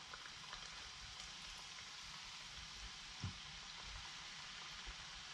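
Hot frying grease bubbling in a small stainless pot on a portable burner, a steady fine crackle and hiss like light rain. A soft thump comes about three seconds in.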